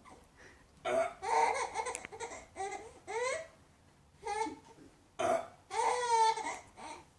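A baby laughing in a string of short, high-pitched bursts with pauses between them; the longest laugh comes about six seconds in.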